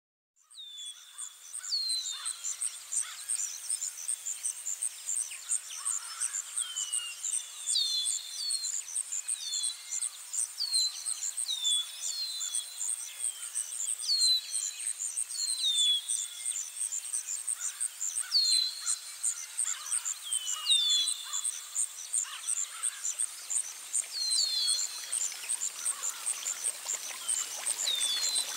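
Outdoor nature ambience: birds giving short chirps that drop in pitch, every second or two, over a steady rapid insect trill. It fades in just after the start, and a rushing sound of running water swells in near the end.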